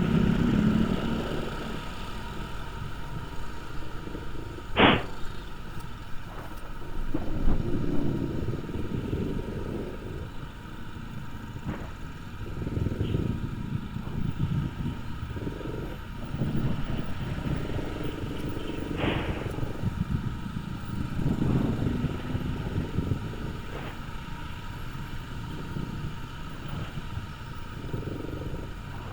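Motorcycle riding in slow stop-and-go traffic: a low engine and road rumble that swells and fades, with two brief sharp clicks.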